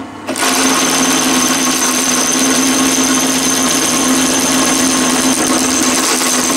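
Machine-driven twist drill boring through steel plate: a steady motor and cutting sound, dipping briefly at the very start and then running on evenly.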